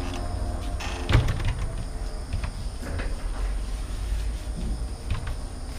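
Metal security grille door being handled and pulled, with one sharp clank about a second in and a few lighter clicks and rattles after it.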